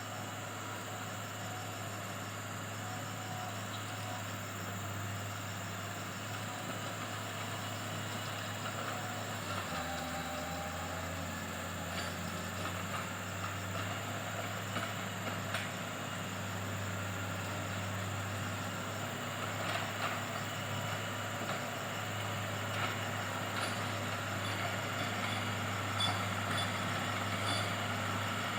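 Komatsu GD511A motor grader's diesel engine running steadily. Scattered sharp clicks and knocks come in over the second half, and the sound grows slowly louder toward the end.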